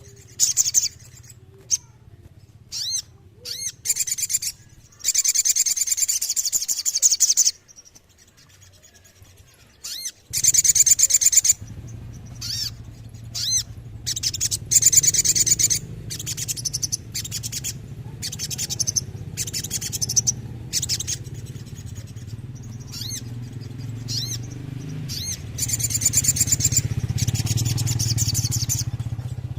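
Spiderhunter (sogon) singing: short high-pitched chips alternating with fast rolling trills lasting one to three seconds. A low steady hum runs underneath from about ten seconds in.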